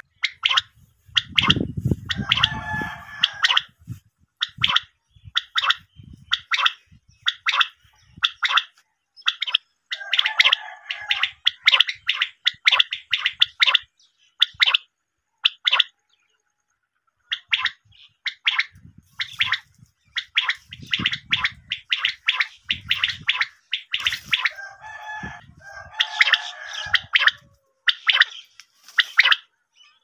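Common quail calling: a quick series of short, sharp, high notes, repeated in runs. A few lower bubbling, gargling calls are mixed in, and there is a pause of about three seconds midway.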